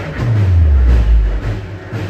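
Loud music with heavy bass: a deep bass note glides downward for about a second, then fades.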